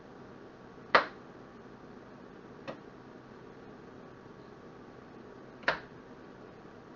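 Knife chopping jalapeno peppers on a cutting board: three sharp knocks of the blade against the board, one about a second in, a fainter one near the middle and another loud one near the end.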